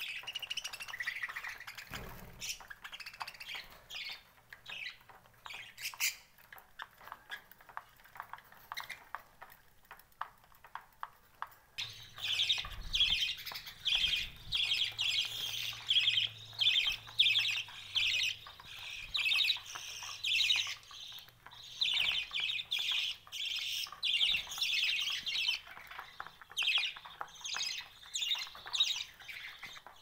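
A flock of caged budgerigars chattering and chirping. Sparse chirps for the first twelve seconds or so, then a dense run of rapid high chirps from about twelve seconds in.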